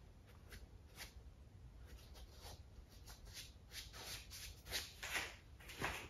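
Paintbrush rubbing and dabbing on a stretched canvas: a run of short scratchy strokes that come closer together and louder toward the end.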